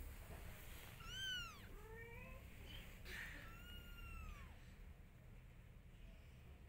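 Longhaired cat meowing faintly: a high call rising then falling about a second in, a few shorter, lower calls just after, and another long falling meow about three and a half seconds in.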